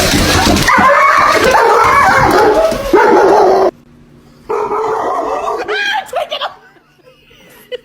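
Dog yelping and whining in sliding, high-pitched cries over a noisy background. The sound cuts off abruptly about three and a half seconds in, then the cries resume briefly about a second later and fade out.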